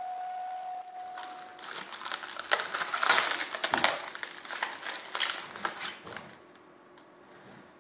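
A CNC router spindle whines steadily for about the first second. Then protective plastic film crackles as it is peeled off an aluminium sheet blank, loudest around the middle and dying away near the end.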